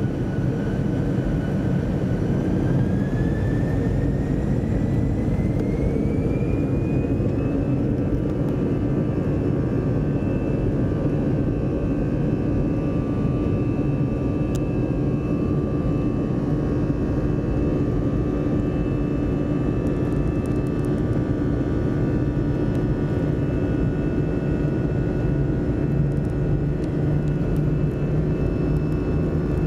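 Airbus A320's jet engines heard inside the cabin: a steady low rumble with a thin whine that rises in pitch over the first several seconds as the engines speed up, then holds steady.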